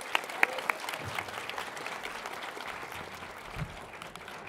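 Audience applauding, with a few loud, close claps standing out in the first second.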